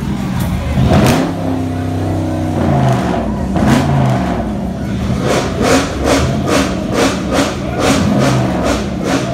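Music with heavy bass and a steady beat, about two and a half beats a second, mixed with the low running of muscle-car engines.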